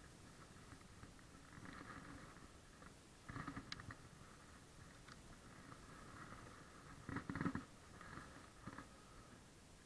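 Faint whir of a baitcasting reel being cranked on a retrieve, broken by two louder handling bumps, about three and a half and seven seconds in.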